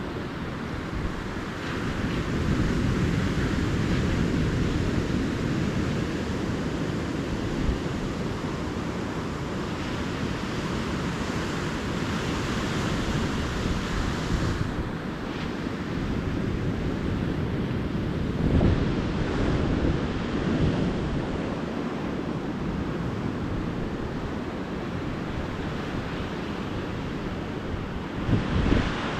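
Calm ocean surf washing steadily onto a beach, swelling and easing, with wind buffeting the microphone in short low gusts a couple of times.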